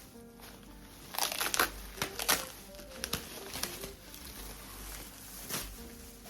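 Packaging crinkling and rustling in irregular bursts as parts of a reindeer decoration are handled, busiest in the first half, over faint background music.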